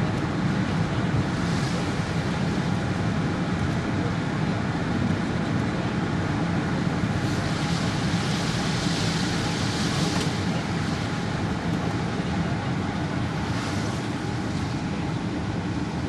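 Steady road and engine noise heard from inside a moving car, with a hiss of tyres or passing traffic that swells for a few seconds in the middle and twice more briefly, once near the start and once near the end.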